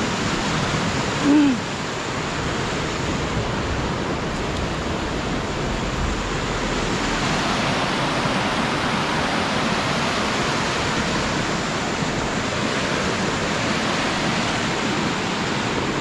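Steady rush of a waterfall and water running over rocks, an even hiss. About a second and a half in, a brief louder sound with a short falling pitch.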